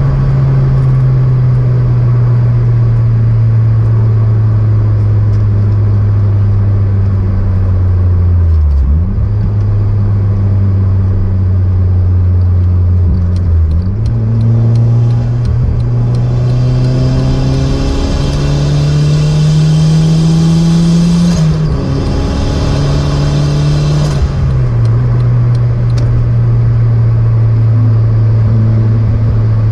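Turbocharged car engine driving through the gears, its note dipping and recovering at about four gear changes and climbing steadily under acceleration in the middle. A high whistle from the turbo comes in during that pull and cuts off at a shift.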